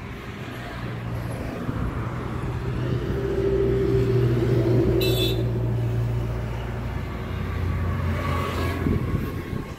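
John Deere tractor's diesel engine running steadily, its pitch dropping slightly about seven seconds in. There is a short metallic click about halfway through.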